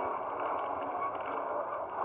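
Rally car's 1600 crossflow four-cylinder engine running hard on a stage, mixed with road and cabin noise into a steady, dense din. It is heard through a small playback speaker, so it has little bass.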